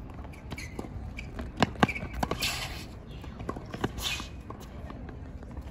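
Tennis balls being struck by rackets and bouncing on a hard court during a rally: a run of sharp pops, the loudest two in quick succession about a second and a half in.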